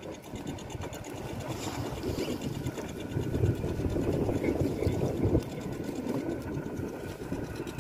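Fishing boat's engine running steadily with a rapid, even beat.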